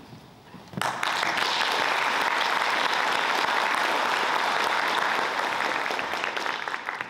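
Audience applauding. The applause starts abruptly about a second in, holds steady, and thins out near the end.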